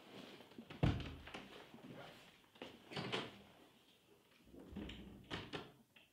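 A heavy thump about a second in, then shuffling and knocks, and a room door being pulled shut, its handle and latch clicking near the end.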